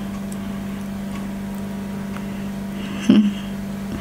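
A steady low electrical hum, with faint soft ticks of fingers working fufu through okra stew and a brief louder sound about three seconds in.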